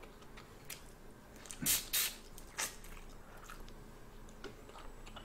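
Shells of cooked red shrimp cracking and crackling as they are peeled by hand, then chewing close to the microphone. There are a few short sharp crunches, the loudest about two seconds in.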